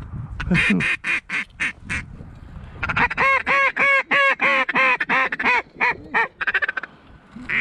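Mallard duck call blown to incoming ducks: a run of short, rapid clucking notes, then a long string of loud quacks, about four a second.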